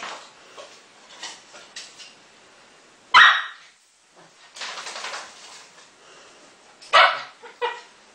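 Dogs barking while playing with each other: several sharp barks, the loudest about three seconds in and a quick pair near the end, with fainter yips and scuffling noise between.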